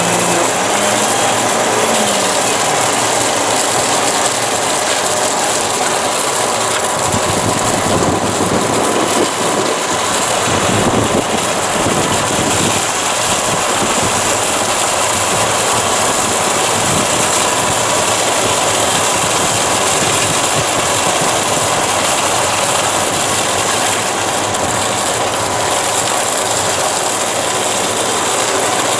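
Construction machinery running steadily, a loud continuous mechanical noise with a faint steady tone running through it.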